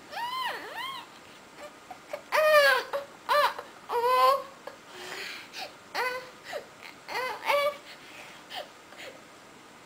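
Young girl crying inconsolably: a string of short, high wailing cries that rise and fall in pitch, with brief whimpering gaps between them.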